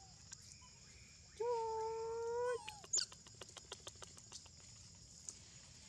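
A long-tailed macaque giving one steady, even-pitched call lasting about a second, ending in a short high upward squeak, followed by a quick run of faint clicks.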